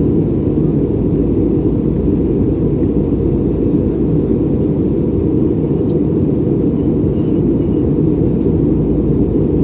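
Steady low cabin roar of an Airbus A320neo in flight, engine and airflow noise heard from a passenger seat inside the cabin.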